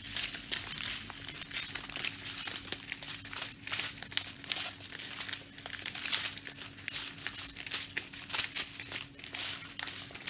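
A strip of small plastic bags of round diamond-painting drills crinkling continuously as it is handled and leafed through, in many irregular crackles.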